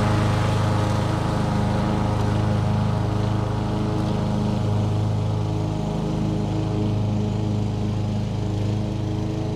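Lawnboy 10310 push mower's four-stroke Tecumseh LV195EA engine running at a steady speed while mowing.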